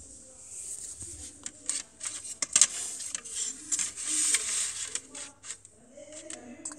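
A LEGO minifigure being pulled off a plastic baseplate by hand: several sharp plastic clicks and snaps, then a couple of seconds of rubbing and scraping from the fingers handling the pieces.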